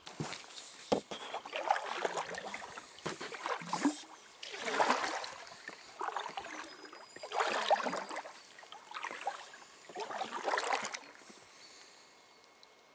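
Kayak paddle strokes in river water: about five splashing strokes, some with sharp knocks, stopping about eleven seconds in.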